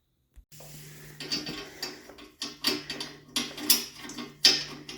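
Small metal hardware of a garage door opener rail being handled: a run of irregular clicks and clinks over a steady low hum, starting about half a second in.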